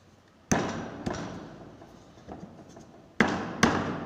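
Several sharp knocks on a Splendor motorcycle engine's crankcase cover, each with a short ringing decay. The cover is being knocked to seat it. The loudest knocks are a close pair a little past three seconds in.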